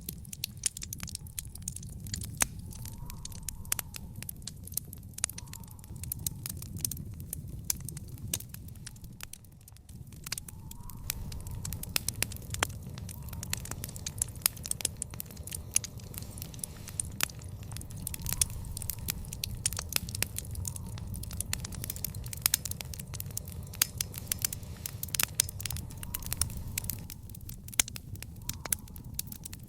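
Wood fire in an outdoor fire pit crackling: dense, irregular sharp pops and snaps over a steady low rumble of flame. The sound dips briefly about ten seconds in and then comes back.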